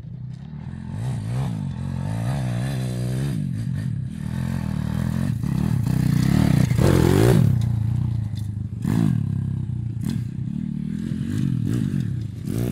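Stomp Racing 140cc YX pitbike's single-cylinder four-stroke engine revving up and down as it is ridden hard off-road, pitch rising and falling with the throttle. It is loudest as the bike passes close, about seven seconds in, with more sharp revs near nine seconds and at the end.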